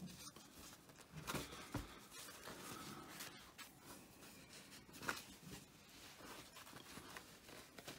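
Faint rustling of thin paper napkins being handled and laid down on a pile. A few louder brushes and a soft thump come in the first two seconds, and another brush about five seconds in.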